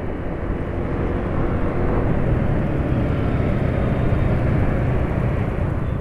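Steady riding noise from a Yamaha scooter cruising in traffic: engine and wind noise, with other motorcycles and cars around it.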